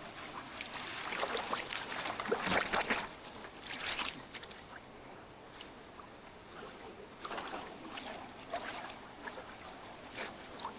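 Fast-flowing river water splashing and sloshing in irregular surges, loudest in the first few seconds.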